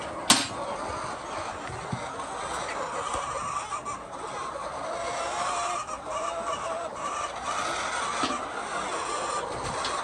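A large flock of laying hens clucking and chattering continuously in a poultry house. One sharp knock is heard a fraction of a second in.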